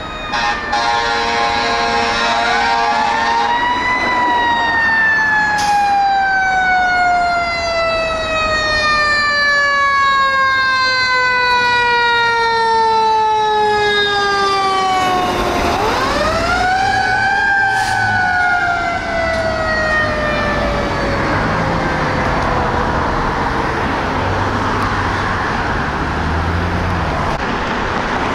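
Fire engine siren wailing. It rises, then falls slowly over about eleven seconds, winds up again about sixteen seconds in, and falls away once more. The truck's engine and tyre noise swell as it goes by.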